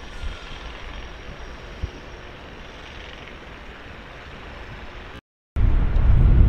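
Steady outdoor railway-station background noise with a low rumble. After a cut about five seconds in, it gives way to much louder, choppy low rumbling from wind buffeting the microphone.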